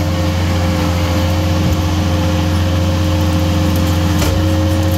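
Komatsu skid steer's diesel engine running steadily at working throttle from the operator's seat, a constant drone with a steady higher tone over it.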